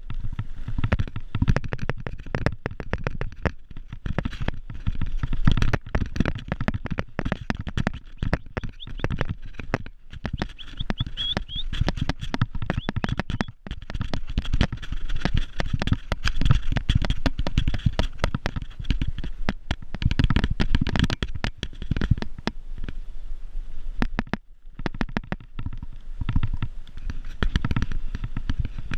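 Mountain bike descending a bumpy grass trail: wind buffeting the microphone as a constant low rumble, with the bike rattling and knocking over the rough ground. It eases briefly near the end.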